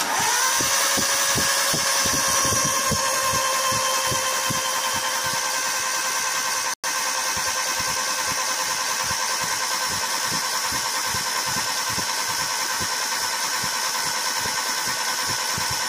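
A motor runs with a steady whine that spins up at the start, with low pulses repeating a few times a second, as it turns the engine over to fire spark plugs laid outside the engine from a Ford EDIS-4 distributorless ignition on test. The sound breaks off for a moment about seven seconds in.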